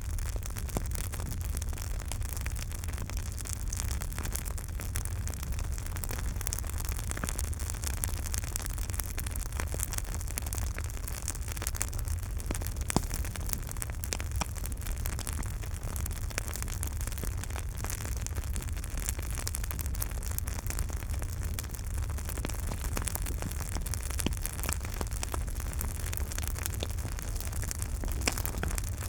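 Campfire burning with a steady low rumble and hiss, dotted with frequent small crackles and a few louder pops.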